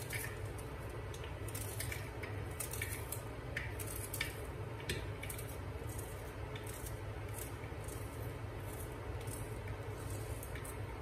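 Small knife cutting a red onion held in the hand, a run of irregular crisp cuts, with diced pieces dropping into an empty metal pressure cooker. The cuts come thickest in the first half and thin out later, over a steady low hum.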